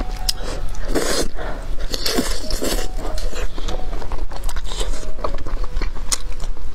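Close-miked eating: thick noodles slurped off chopsticks and chewed, with wet mouth noises and small clicks. The loudest slurps come about a second in and again around two to three seconds in.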